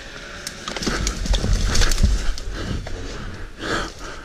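Dirt bike bumping over sticks and logs on a forest floor: irregular knocks, clunks and twig cracks over a low rumble.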